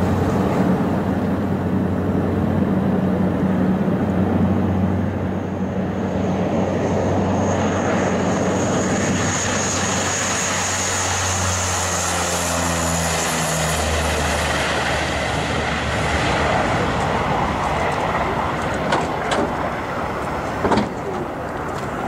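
Twin-turboprop airliner's engines at takeoff power during the takeoff roll: a steady low propeller drone, with a high turbine whine that swells through the middle and fades. A few sharp clicks come near the end.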